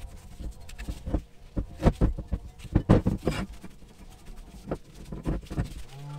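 A sandblasted brake caliper and carrier bracket handled and wiped with a cloth: irregular knocks and thumps as the metal parts are turned over and set down on the bench mat, with cloth rubbing.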